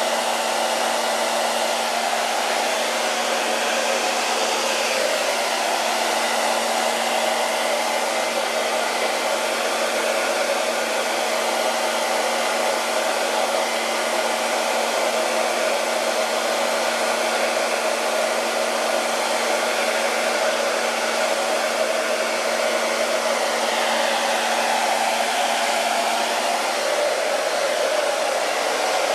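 Hair dryer running steadily, a constant rush of air with a steady hum, blowing on a fresh coat of chalk paint to dry it.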